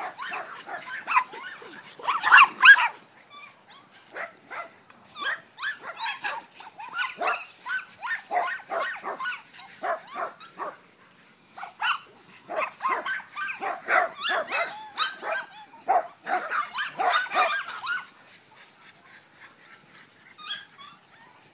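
Jack Russell terriers barking and yipping in rapid runs of short barks as they race around. The barking stops about 18 s in, leaving only a few faint yips near the end.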